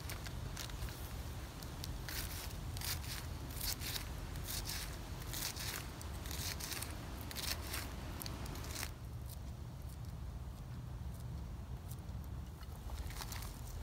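Knife cutting through a red onion held in the hand, a quick run of crisp cuts that stops about nine seconds in, with a few softer handling sounds near the end. A low steady rumble runs underneath.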